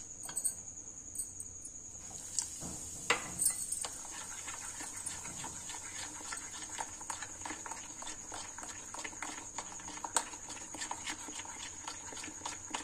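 Thick multigrain batter being stirred in a glass bowl, first with a spoon and then by hand, just after Eno fruit salt has been added: many small wet squelches and clicks, with a sharper knock about three seconds in.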